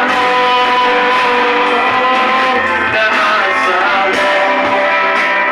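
Live worship band music: amplified guitar playing with singing, loud and steady throughout.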